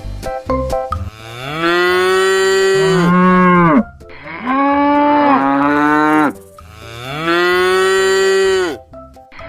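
Cow mooing three times in long drawn-out calls of about two seconds each, each one falling in pitch at its end. A few short musical notes come before it in the first second.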